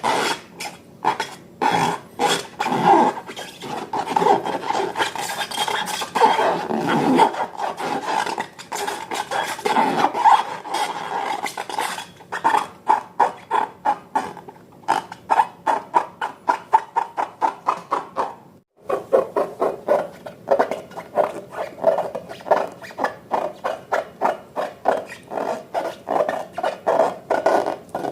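Slime being worked by hand in a container: scraping and stirring at first, then settling into a regular wet squish about two to three times a second.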